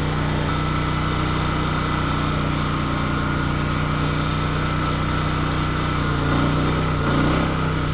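Champion 4000-watt open-frame inverter generator's single-cylinder engine running steadily. Near the end its speed bumps up as it picks up the starting load of an RV air conditioner.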